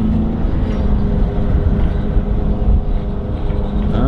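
An engine running steadily, a few steady tones over a heavy low rumble, with wind buffeting the microphone.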